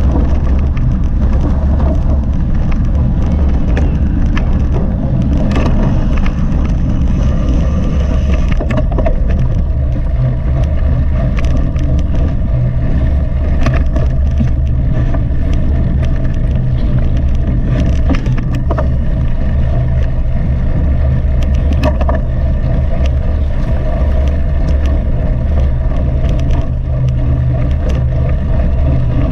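Mountain bike being ridden at speed, heard through a GoPro's microphone: a steady deep rush of wind buffeting the mic, with frequent short rattles and knocks from the bike over rough ground.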